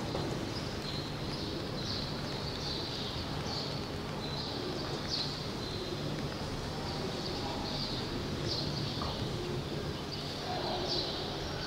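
Short, high chirps of a small animal repeating about twice a second at uneven intervals, over a steady low hum of indoor room noise.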